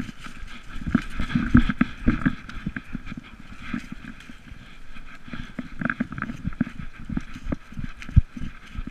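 Irregular thumps, knocks and rubbing from a camera housing strapped to a running Irish wolfhound's collar, jostled with each stride as the dog's paws hit a gravel path.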